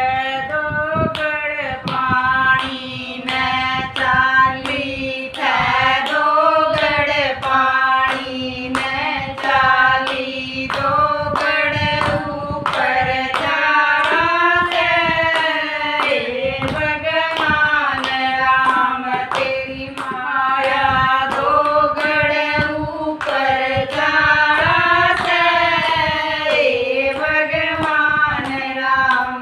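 A small group of women singing a Haryanvi jakdi, a wedding folk song, in unison, keeping time with steady hand claps.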